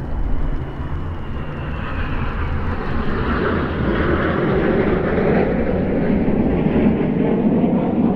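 Kawasaki T-4 jet trainers flying over in a five-ship formation: twin turbofan jet noise with a high whine falling in pitch over the first two seconds, then a rushing roar that builds from about three seconds in and stays strong.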